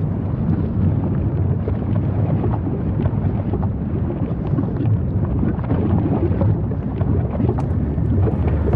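Deep, steady rumble of an erupting lava vent, with dense crackling over it and a few sharp cracks near the end.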